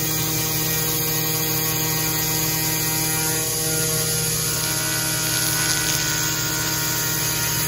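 CNC router spindle driving a 3/8-inch end mill through 1/8-inch 6061 aluminum sheet while contouring parts: a steady whine of several held tones over the hiss of the cut.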